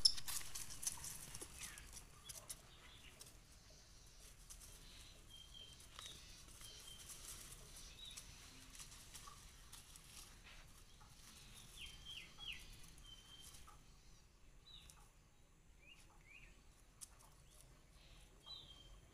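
Faint, high-pitched bird chirps and peeps, short calls scattered through, several sliding downward. A louder burst of rustling and clicking comes in the first couple of seconds.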